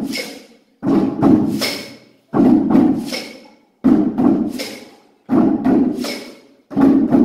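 Children's batucada played on everyday household objects: sticks and hands beating plates, lids and tubs. A short pattern of several strokes repeats about every second and a half.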